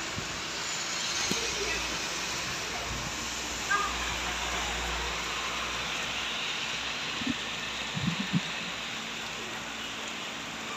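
Steady heavy rain pouring onto a wet city street and rooftops. A few brief low sounds stand out about a third of the way in and again about three-quarters through.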